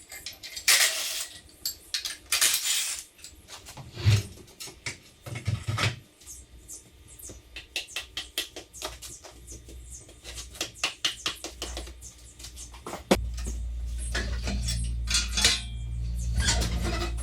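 Metal parts and hand tools clanking and clicking in irregular knocks, with a quicker run of light clicks in the middle; a steady low hum starts suddenly near the end.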